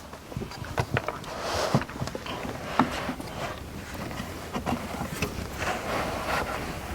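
Handling of a wooden interior cabinet panel being slid back into place: scattered knocks, taps and scraping.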